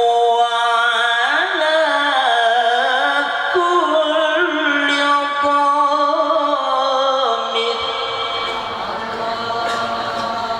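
A male Quran reciter's voice in the melodic mujawwad style, holding one long ornamented phrase whose pitch bends up and down. The voice stops about three-quarters of the way in, leaving a fading echo.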